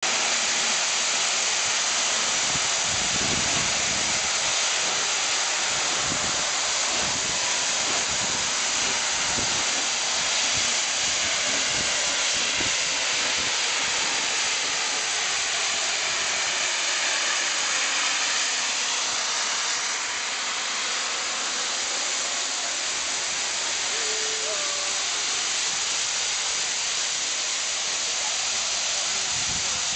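Steam locomotive LNER Peppercorn A1 Pacific 60163 Tornado standing at the platform, its escaping steam making a loud, steady hiss.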